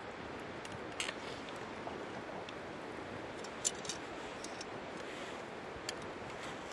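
Campfire crackling, with scattered sharp pops and ticks from the burning wood, over a steady rush of stream water.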